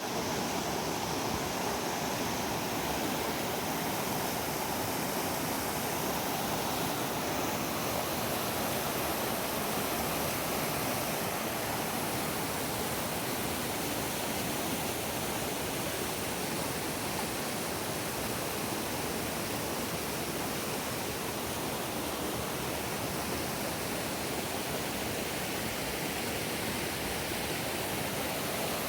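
Running water rushing steadily, an even hiss without separate splashes or breaks.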